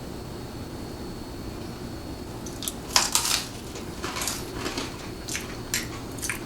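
Crunchy pizza crust being bitten and chewed, a string of short, sharp crunches starting about two and a half seconds in, the loudest soon after, over a low room hum.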